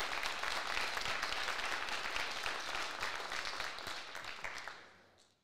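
Audience applauding, dense clapping that dies away near the end.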